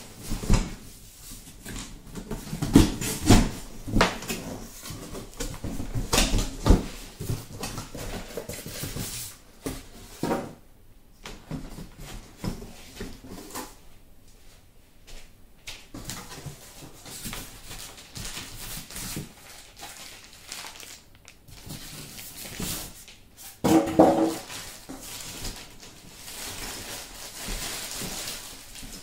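Cardboard box and packaging being handled while unpacking an electric scooter: irregular knocks, thumps and rustling, busiest at first. A brief pitched sound comes near the end.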